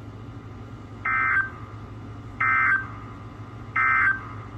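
Emergency Alert System end-of-message code: three short bursts of buzzing digital data tones, about 1.3 s apart, signalling that the severe thunderstorm warning broadcast is over. A low steady hum runs underneath.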